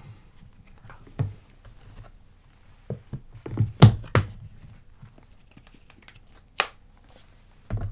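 Handling of an e-ink tablet and its magnetic folio cover as the cover is fitted on: scattered soft knocks and taps, a cluster of louder knocks about four seconds in, a single sharp click a little past six seconds, and a thump near the end.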